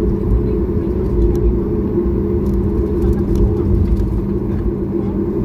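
Cabin noise of a Boeing 737 MAX 8 taxiing: a steady two-note drone from its CFM LEAP-1B engines at taxi power over a low, uneven rumble from the ground roll.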